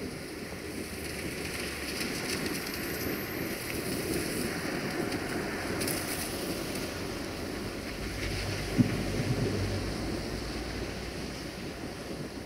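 Wind buffeting the microphone over a hiss like light rain, with the low rumble of a GM-engined diesel locomotive approaching in the distance, growing stronger about eight seconds in. One sharp knock about nine seconds in.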